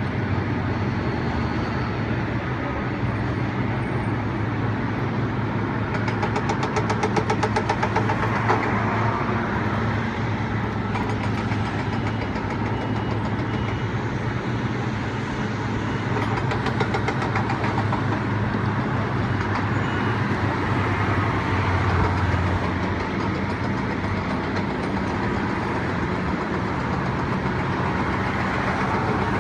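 An engine running steadily with a low hum, with a quick run of fine ticking about seven seconds in.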